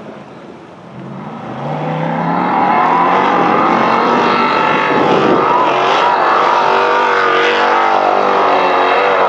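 Formula Offroad hill-climb buggy's engine revving hard at full throttle up a sand slope. It rises in pitch and loudness from about a second in, then holds high revs that waver up and down.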